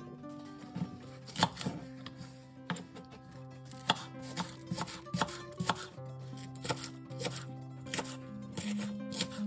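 Kitchen knife chopping a green onion on a wooden cutting board: irregular sharp knocks of the blade hitting the board, about one or two a second.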